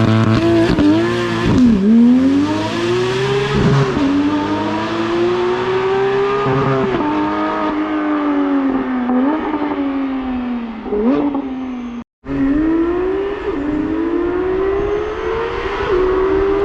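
Porsche 991.2 GT3's 4.0-litre flat-six through an EVOX titanium exhaust, pulling hard with the pitch rising and dropping sharply at upshifts about two and four seconds in. It then winds down slowly with two short revs, cuts out for a moment about twelve seconds in, and pulls up through a gear change again.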